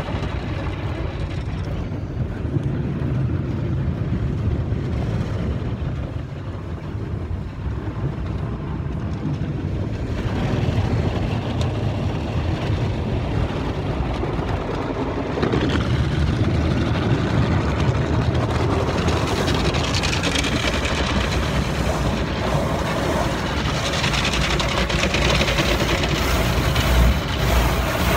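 Automatic car wash heard from inside the car's cabin: cloth brushes scrubbing over the windshield and body, with water spraying on the glass and roof. The noise gets louder and brighter about ten seconds in, and again past the middle.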